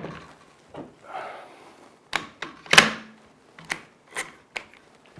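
Metal clicks and clacks of a quick-release suppressor being slid onto an AR rifle's bird-cage flash hider and latched: a soft scrape, then a run of sharp clicks, the loudest about three seconds in.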